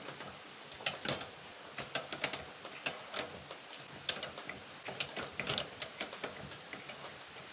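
Metal clicks and clinks in short clusters about once a second as a 23 mm spanner works a nut loose on a motorcycle's rear wheel hub.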